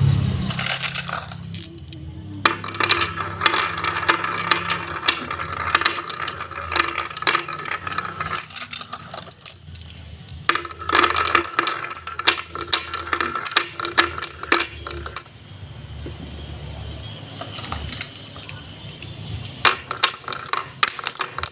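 Marbles clattering and rolling along a marble run track: many rapid small clicks and rattles, in stretches of denser clatter.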